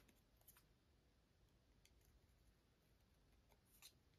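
Near silence broken by a few faint snips of small scissors cutting a circle out of cardstock, the loudest near the end.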